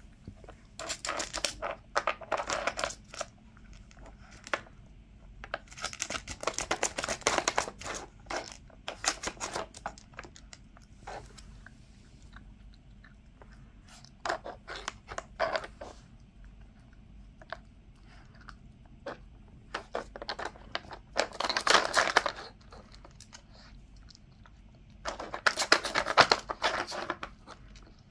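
A puppy rooting through a plastic food puzzle toy, knocking and sliding its plastic pieces with her nose and crunching the food she finds. The sound comes as several spells of rapid clicking and crunching, each a second or two long, with quieter gaps between them.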